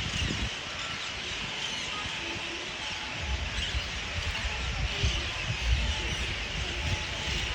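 Dense, continuous chatter of a large roosting flock of parrots and crows, many birds calling at once. Uneven low rumbling joins in from about three seconds in.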